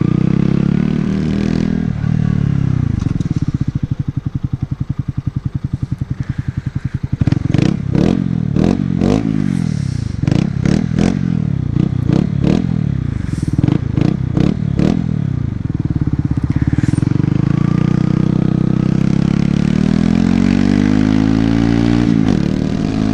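Honda CBR125's single-cylinder engine heard while riding. It settles to a low putter for a few seconds, then the engine pitch jumps up and falls off about a dozen times in quick succession. It then climbs steadily under acceleration and drops sharply near the end, as at a gear change.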